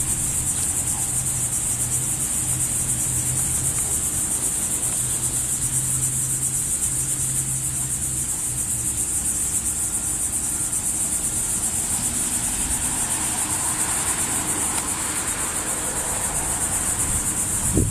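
Steady high-pitched chorus of insects such as crickets, unbroken throughout, with a low engine hum underneath that fades out about halfway.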